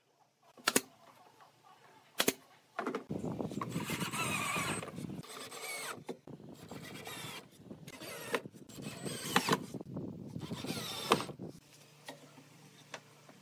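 Two sharp knocks, then wooden shelf slats squealing and scraping against the wooden frame in several stretches of a second or two as they are worked into place.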